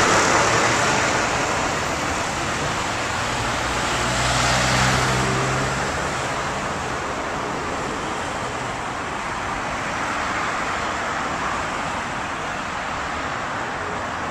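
Steady city road traffic of cars and motor scooters moving through an intersection, with one vehicle's engine passing closer and louder about four to five seconds in.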